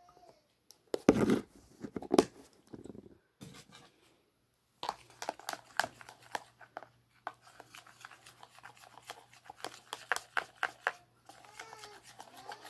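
Slime mixture being stirred with a thin utensil in a bowl: a run of quick scraping clicks against the bowl, after a few loud knocks and rustles of handling about a second in.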